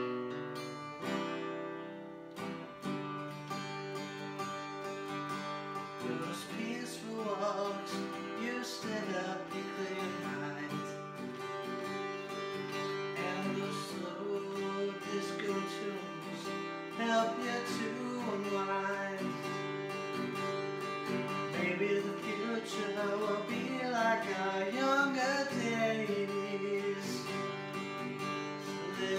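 Acoustic guitar strummed in chords, with a man singing along, his voice coming in after the first several seconds.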